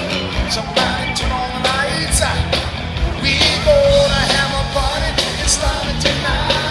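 Loud music with singing, heard over a crowd of boaters, most likely a live act on the festival stage.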